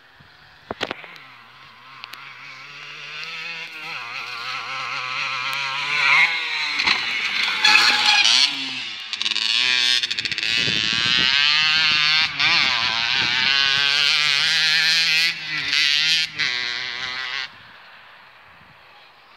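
Dirt bike engine revving repeatedly, its pitch rising and falling with the throttle and gear changes, growing louder as the bike comes closer and loudest as it rides past. The engine sound cuts off suddenly near the end.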